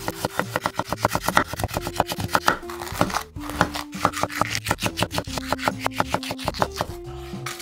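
Kitchen knife chopping on a wooden cutting board, first cutting carrot into thin sticks and then slicing green peppers. The strokes are quick and even, several a second, each a knock of the blade on the board, with a short break about three seconds in.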